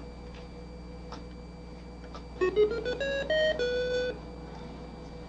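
A short tune of about six electronic notes from a computer-controlled tone generator, played by a child's Logo music procedure; the notes start about two and a half seconds in, come quickly, and the last one is held longest. A low steady hum runs underneath.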